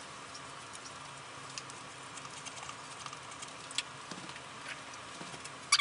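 Low room hiss with sparse, faint ticks and small handling noises from foam board being worked on a wooden table, ending in a sudden loud crackle.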